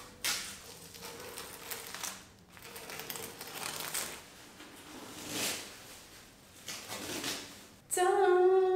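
Thin plastic protective sheeting being peeled and pulled off a mirror, crinkling and rustling in uneven bursts. Near the end a woman's voice breaks into loud singing.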